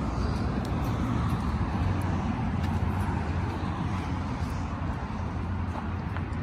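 Steady rumble of road traffic, with a few faint clicks in the first few seconds.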